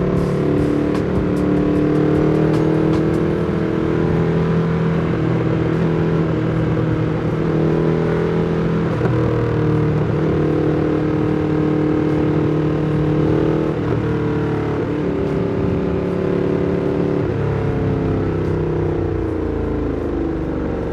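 Ducati Streetfighter V2's L-twin engine running through an Austin Racing exhaust while the bike is ridden. The engine pitch rises and breaks off several times as it pulls through the gears, then falls near the end as the bike slows.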